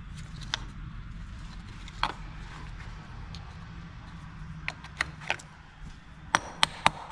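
A wrench clicking and tapping against the battery's ground-cable terminal clamp as it is loosened: a dozen or so short metallic clicks at uneven intervals, coming closer together near the end, over a steady low hum.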